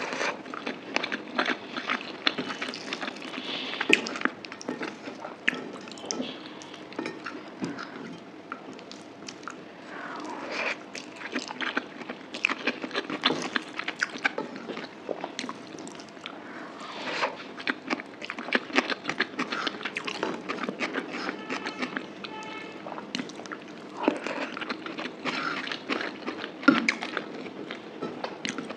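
Close-miked chewing and biting of mutton curry and rice: a dense, irregular run of wet mouth clicks, smacks and small crunches.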